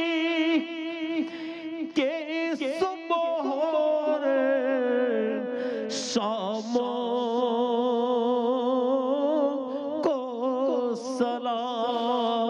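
A man's voice singing an Urdu naat (Islamic devotional poem), drawing out long held notes with a wavering vibrato.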